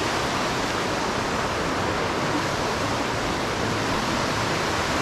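Mountain creek cascades rushing down a steep rock-slide chute: a steady, loud roar of falling white water with no letup.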